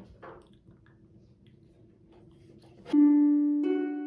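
Faint room sound, then about three seconds in background music starts: a plucked-string instrument sounding two clear notes, each dying away.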